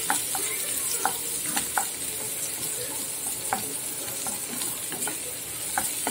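Chopped onions sizzling in a little hot oil in a nonstick kadhai while a wooden spatula stirs them: a steady high hiss with scattered light scrapes and taps of the spatula against the pan.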